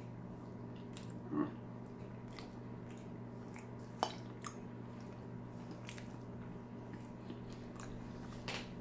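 A man chewing a mouthful of chicken burrito bowl with his mouth closed. There are a few small clicks, the sharpest about four seconds in, over a steady low hum of room noise.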